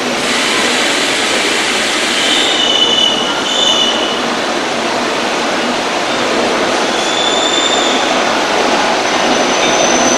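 Deutsche Bahn Intercity passenger coaches rolling slowly along the station track: a steady rumble of wheels on rail, with short high-pitched wheel squeals about two to four seconds in, again about seven seconds in, and once more near the end.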